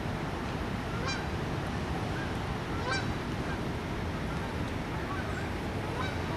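Geese honking in short calls, a few times, over a steady rushing noise.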